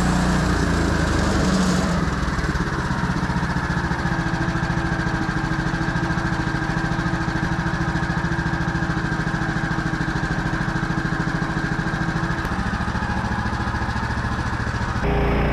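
An engine idling steadily with an even, rapid firing pulse.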